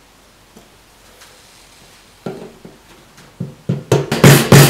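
Hammer tapping the slide-on locking collar round on a Jaguar XK8's metal fuel tank, driving it tight over the fuel pump seal. About eight sharp metallic strikes start about two seconds in and come faster and louder toward the end.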